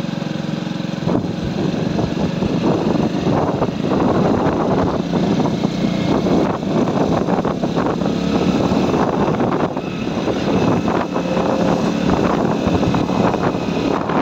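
Hero motorcycle's single-cylinder engine running steadily while riding, heard over a rushing wind noise on the microphone that grows louder about a second in.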